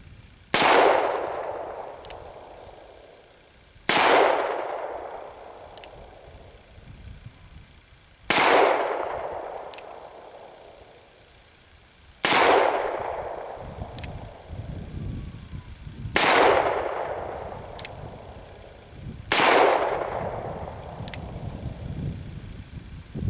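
Six shots from a Colt New Service revolver chambered in .38-40 Winchester (38 WCF), fired single action one at a time about three to four seconds apart. Each shot has a long echoing tail that fades out over a few seconds, with a faint click between shots.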